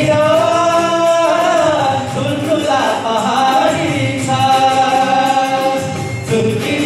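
Men singing a song together into stage microphones, holding long notes about a second in and again through the second half.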